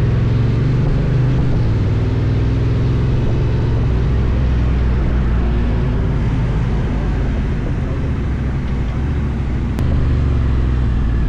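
Honda NT1100 motorcycle's parallel-twin engine running under way, pitch rising as it accelerates through the first few seconds and then holding steady at cruising speed, with a steady rush of wind and road noise over it.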